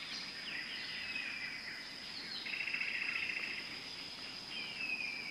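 Several wild birds singing together in woodland: short chirps and falling whistles, with a fast trill about halfway through. A thin, steady high tone runs underneath.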